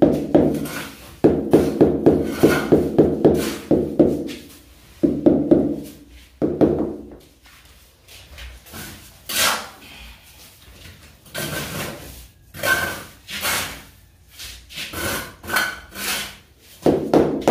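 Rubber mallet tapping a large ceramic floor tile down into its bed of wet mortar, to seat and level it. The taps come in quick runs of about three a second with a hollow ring. In the middle stretch there are only lighter scattered knocks and scrapes, and a short run of taps returns near the end.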